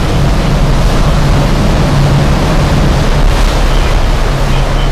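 Sightseeing boat's engine running with a steady low hum, under an even rush of water and wind noise.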